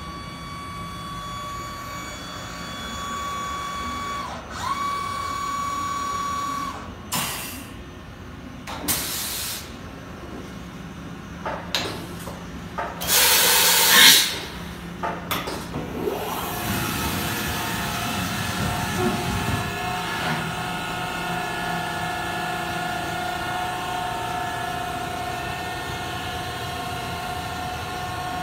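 Hyundai Kia VX950M vertical machining center in operation, opening with a steady machine whine. Several short hisses of air follow, the loudest about thirteen seconds in and lasting over a second. From about sixteen seconds the machine settles into a steady hum made of several tones.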